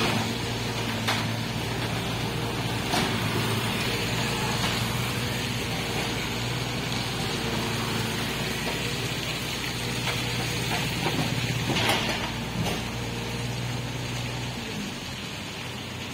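Tata Hitachi mini excavator's diesel engine running steadily under hydraulic load as its arm pushes against the ground, with a few short knocks; the engine note drops away near the end. Motorbikes pass on the wet road.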